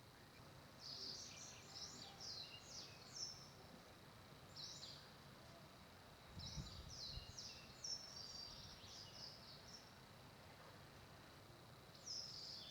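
Small birds chirping faintly in several short runs of quick high chirps over a quiet outdoor background hiss.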